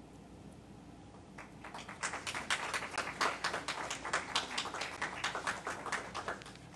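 A small audience applauding, starting about a second and a half in and dying away near the end, the separate claps easy to pick out.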